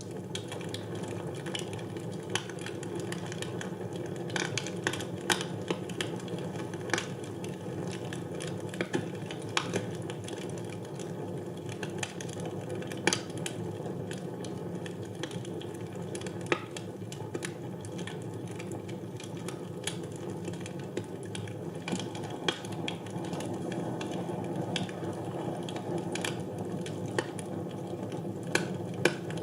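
Wood fire burning in a fireplace: a steady low rush of flame under irregular sharp crackles and pops from the burning logs.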